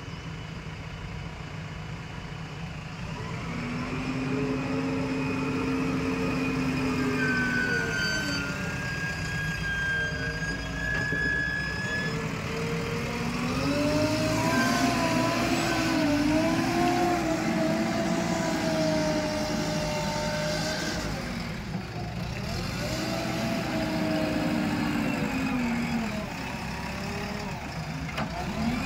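JCB 3DX backhoe loader's diesel engine running and being revved up and down as the loader works the sand pile, its pitch repeatedly climbing and falling. It is quieter for the first few seconds and then revs harder, under load as the bucket pushes into the sand.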